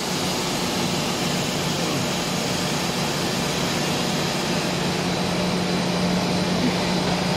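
Steady mechanical din of a running PP/PE/PC hollow corrugated sheet extrusion line, its motors and blowers going at a constant pace, with a steady low hum that grows a little stronger about halfway through.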